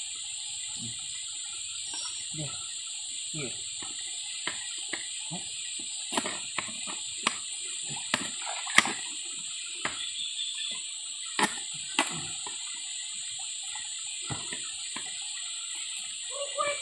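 Knife cutting red chillies in a plastic tray, with irregular sharp taps of the blade against the tray. Behind it are a steady high insect drone and the hiss of running stream water.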